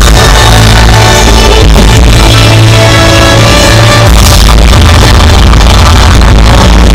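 Loud electronic music with a heavy, sustained bass line.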